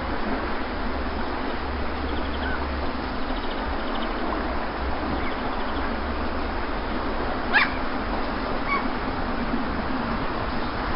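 Steady wash of sea waves. About two-thirds of the way through comes a single short, high animal call, with a few faint chirps elsewhere.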